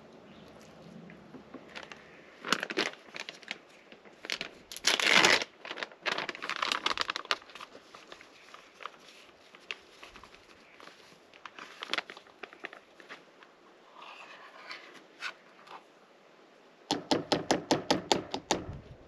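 A paper-and-plastic bag of pancake mix being handled, torn open and poured, crinkling in bursts with the loudest about five seconds in. Near the end comes a quick run of about a dozen sharp taps.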